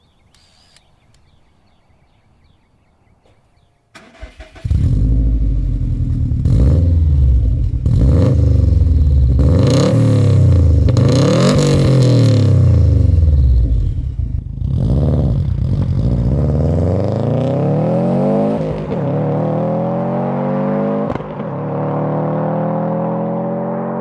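2016 Subaru WRX STI's turbocharged 2.5-litre flat-four running through a COBB titanium cat-back exhaust and 3-inch downpipe. It comes in suddenly about four seconds in and is revved up and down several times, then pulls away accelerating with rising pitch, shifting up twice.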